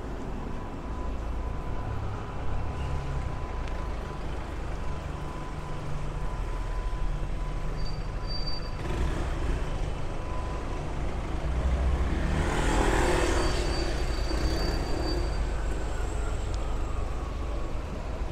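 Street traffic: car and bus engines running in a steady low rumble, with a louder rush of noise about two-thirds of the way through as a vehicle goes by.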